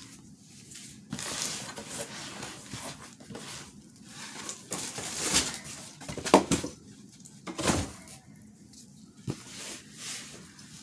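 Irregular rustling and knocking of items and packaging being handled, with a couple of louder knocks in the middle.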